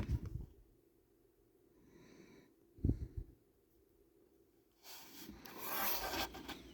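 Plastic action figure and its small accessories being handled: a knock about three seconds in, and a breathy rustle near the end.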